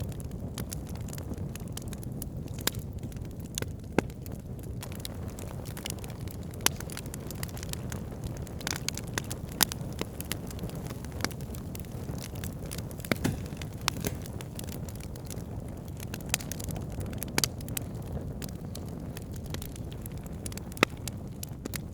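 Wood campfire burning: a steady low rumble with irregular sharp crackles and pops, and a few louder snaps scattered through.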